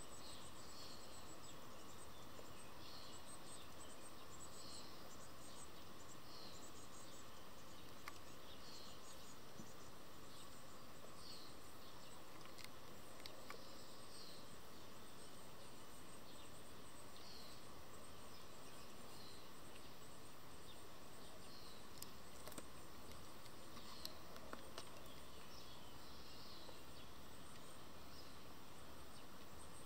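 Faint outdoor ambience: short high chirps repeat about every second and a half over a steady high insect buzz, with a few faint taps.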